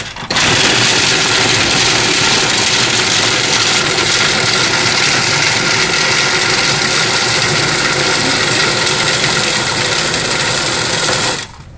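Commercial food processor motor running at full speed, grinding a thick mixture in its bowl. There is a brief break just as it starts, then a steady run, and it is switched off near the end.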